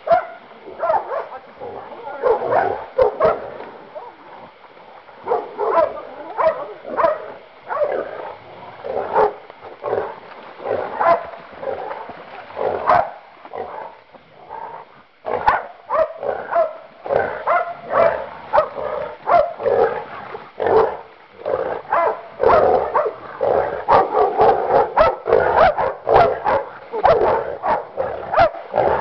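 Hog-hunting dogs barking in rapid, repeated bursts at a wild boar; the barking lets up briefly about halfway through, then comes thicker again.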